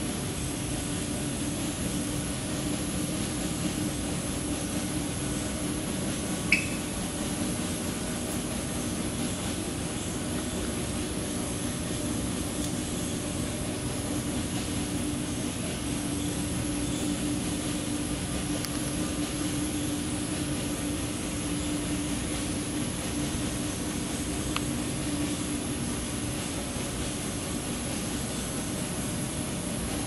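Steady industrial background drone with a low hum, the ambient noise of plant machinery and air handling, broken by a single short click about six and a half seconds in.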